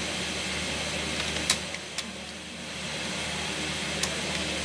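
Opened National VCR running with a VHS cassette loaded: a steady mechanical hum with a few sharp clicks from the tape transport, about a second and a half in, at two seconds and again near the end.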